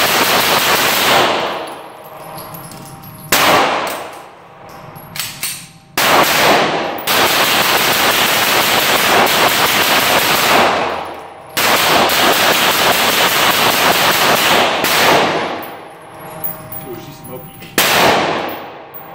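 Beretta 92 9mm pistol fired in rapid strings from a 75-round magazine, several long runs of fast shots with short pauses between, echoing loudly off the indoor range walls.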